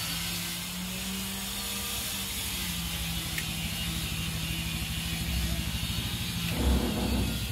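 A steady low whirring hum that sinks slightly in pitch, with a short dull thump near the end.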